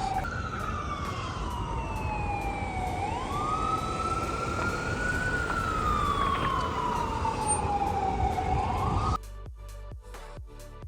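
Emergency vehicle siren sounding a slow wail, its pitch sliding down, sweeping back up, then falling again over several seconds, over steady street noise. About nine seconds in the sound cuts off abruptly to a much quieter background with a few faint clicks.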